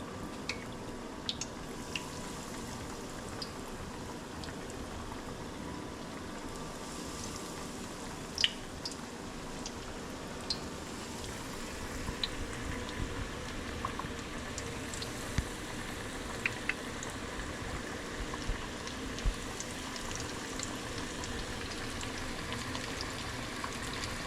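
Hot grease sizzling steadily as catfish pieces deep-fry, with scattered sharp pops and crackles that become more frequent in the second half.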